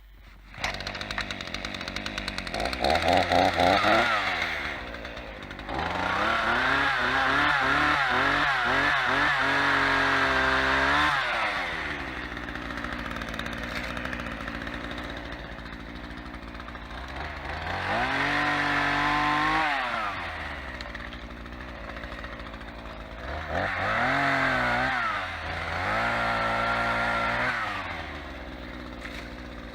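Champion two-stroke chainsaw running, revving to high speed and dropping back to idle about five times, with the longest burst of throttle lasting about five seconds.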